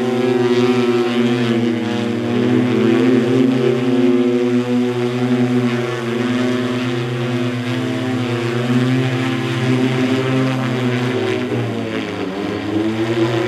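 Opener BlackFly eVTOL's eight electric motor-driven propellers in flight overhead, a steady multi-tone propeller hum; near the end the pitch dips and rises again.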